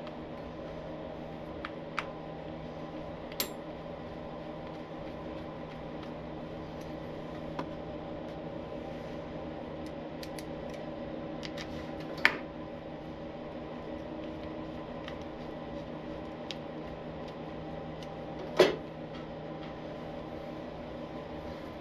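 Allen wrench and small steel screws clinking sharply a handful of times over a steady hum, the loudest clink about twelve seconds in and another near the end.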